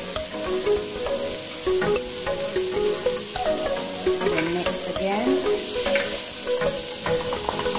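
Diced pumpkin, onion and red bell pepper sizzling in a frying pan as they are stirred, with repeated taps and scrapes of the utensil against the pan. Background music plays underneath.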